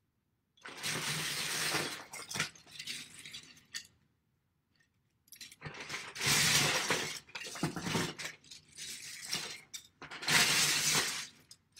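Plastic Lego bricks clattering and clinking as a hand digs through a sensory bin, in three main bursts of rummaging with short pauses and a few scattered clicks between.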